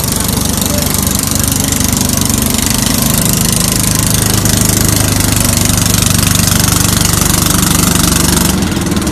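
Small wooden motorboat's engine running steadily close by, with a fast, even beat and a loud hiss over it.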